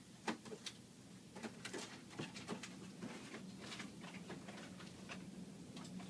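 Light, irregular clicks and taps of small tools and parts being handled during a tablet screen repair, over a faint steady hum.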